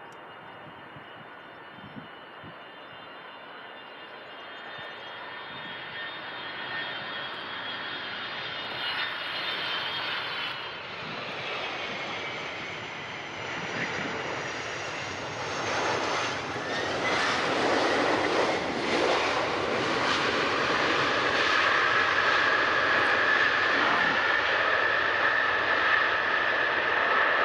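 Boeing 747SP's jet engines running, growing steadily louder, with a whine that drops in pitch about ten seconds in and a steady high whine over the jet noise near the end.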